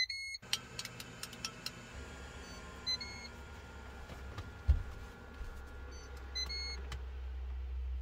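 Countertop air fryer being restarted: its control panel beeps, then its fan starts about half a second in and runs with a steady whir. A low hum builds under it, the panel beeps again about 3 and 6.5 seconds in, and a single sharp knock comes near 5 seconds.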